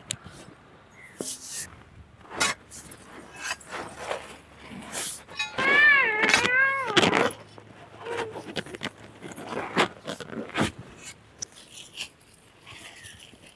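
Knocks and crunches of a digging bar and hands breaking up hard, stony red soil to unearth buried palmyra sprouts. About six seconds in, the loudest sound is a wavering animal cry lasting about a second and a half.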